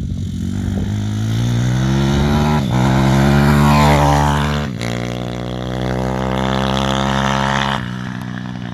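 Zongshen 160cc single-cylinder four-stroke pit bike engine accelerating hard, its pitch climbing and then dropping at two gear changes. It pulls on through the next gear, then the throttle eases off near the end.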